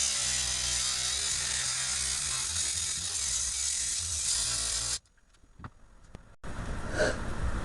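Angle grinder cutting through a starter motor armature, a steady harsh grinding that cuts off suddenly about five seconds in. After a moment of near silence there is a low background rumble with a couple of light clicks.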